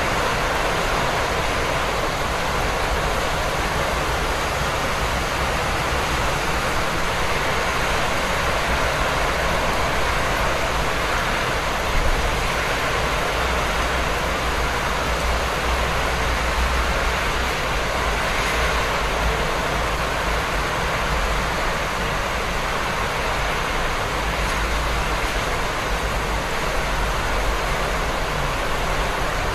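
Steady rain falling in a city: an even hiss with a low rumble underneath.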